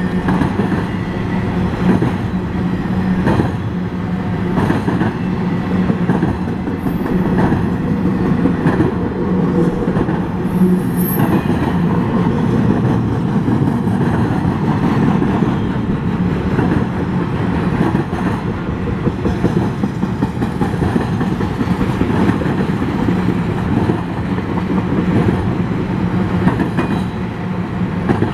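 Empty BNSF spine-car intermodal train rolling past at trackside: a steady rumble of steel wheels on rail, with repeated clacks as the wheel trucks go by.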